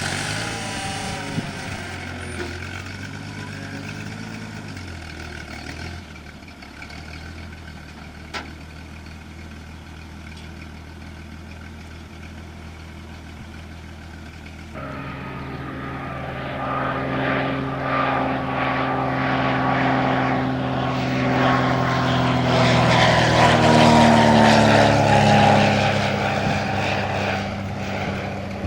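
Cessna Agwagon agricultural plane's piston engine and propeller droning. In the second half the sound grows louder and its pitch falls as the plane flies past.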